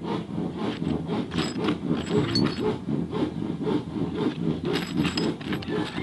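Repeated rasping, scraping strokes of a hand tool working a metal shifter part.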